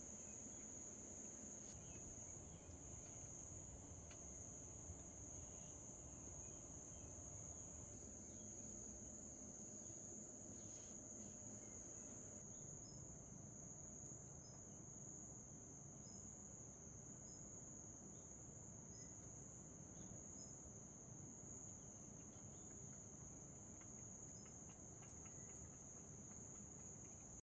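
Faint, steady high-pitched trilling of crickets, with a few short, higher chirps repeating about every second and a half in the middle stretch.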